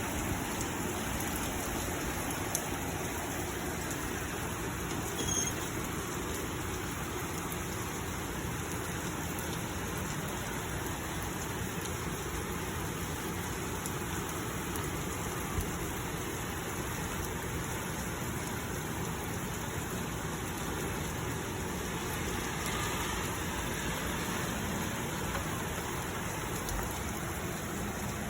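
Heavy rain pouring down: a steady, even hiss of rainfall, with a few isolated ticks of drops.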